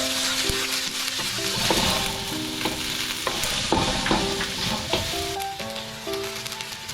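Food sizzling as it fries in a pan, with a utensil clicking and scraping against the pan as it is stirred.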